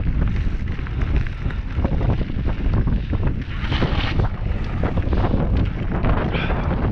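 Wind buffeting a helmet-mounted GoPro's microphone as a mountain bike rolls across gravel: a steady low rumble, with a scattered crackle of the tyres on the stones.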